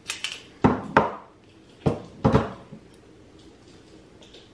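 Lightsaber hilts handled and set down on a hard surface: about five sharp knocks and clacks in the first two and a half seconds.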